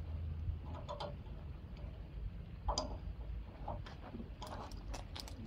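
Irregular light clicks and taps of rescue gear being handled on the pavement, over a steady low rumble.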